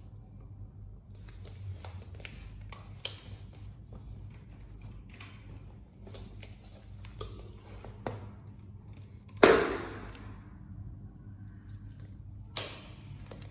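Scattered clicks and knocks, the loudest about nine and a half seconds in, over a faint steady low hum.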